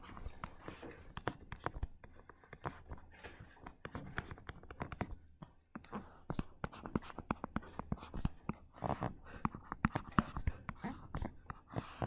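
Pen stylus clicking and sliding on a tablet screen while a diagram is drawn: many light, irregular clicks.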